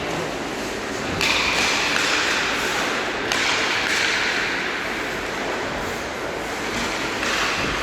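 Ice hockey play: skate blades scraping and carving on the ice, in a steady hiss that surges sharply about a second in and again about three seconds in, with light knocks of sticks and puck.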